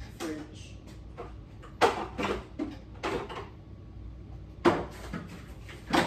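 Kitchen doors being opened and shut while someone puts things away: three sharp knocks, about two seconds in, near five seconds and near the end, with softer clatter between.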